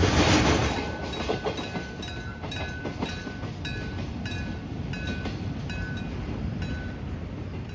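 Electric-bell level-crossing warning bell ringing in regular struck strokes, roughly one and a half a second. The rumble of a passing train fades out over the first second or two.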